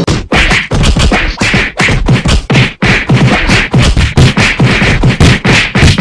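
Rapid, irregular run of loud cartoon whacks and thuds, several a second, a fight brawl sound effect.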